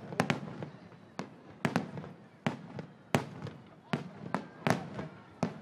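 Fireworks display: an irregular series of about ten sharp shell bursts in under six seconds, each bang trailing off in a short echo.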